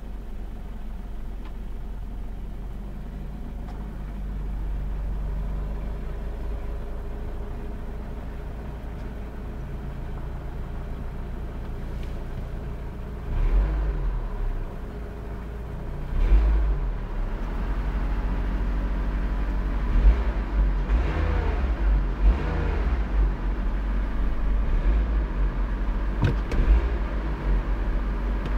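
Renault Mégane's F4R 2.0-litre four-cylinder petrol engine idling steadily, then revved up and let fall back several times from about halfway through. The engine is making a strange noise that the owner wants diagnosed.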